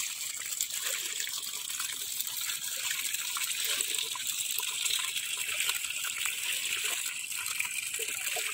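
Water running steadily through a narrow gap in a mud bank and pouring into a woven basket fish trap, a continuous splashing trickle.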